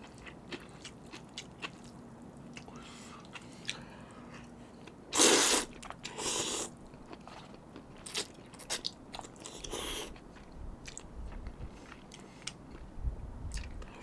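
Close-miked eating of spicy seafood noodles (jjamppong): chewing and biting with many small wet mouth clicks, and two loud noisy bursts about five and six seconds in.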